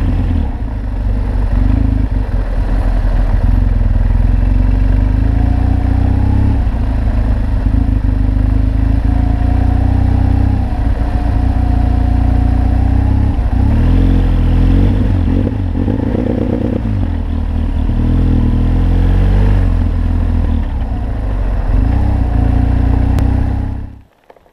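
Heavy adventure motorcycle being ridden, its engine running under a deep, steady rumble of wind on the helmet-mounted microphone, with the engine note rising and falling a few times. The sound drops away abruptly near the end.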